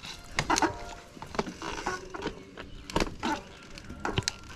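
Mountain bike clattering and knocking as it rides over rough trail ground, with a series of irregular sharp knocks.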